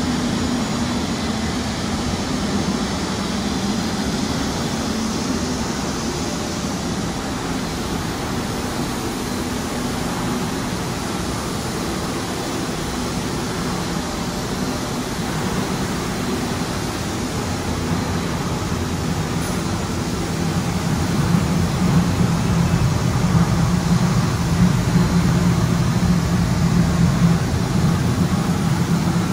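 Proma EVO automatic spray machine running: a steady whir from its extraction fan and machinery, with a low hum that grows louder about two-thirds of the way through.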